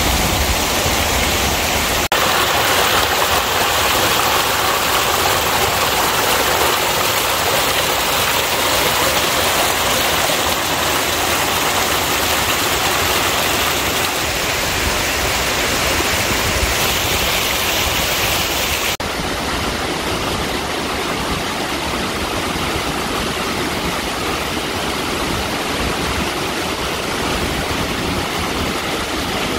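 Mountain stream rushing and splashing over rocky cascades and small waterfalls: a steady hiss of water that changes abruptly in tone about two seconds in and again about two-thirds of the way through.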